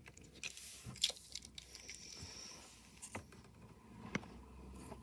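Faint handling noises from a small die-cast toy car being turned in the hands: a few soft clicks, roughly a second apart, with light rustling.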